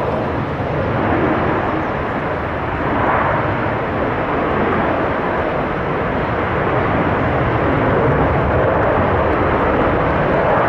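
Airbus A330 airliner's jet engines running, a loud steady rush that swells slightly twice as the aircraft comes in to land.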